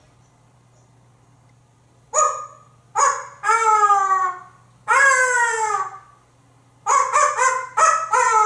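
African grey parrot imitating a dog barking. Short barks start about two seconds in, followed by two longer barks sliding down in pitch, then a quick run of short barks near the end.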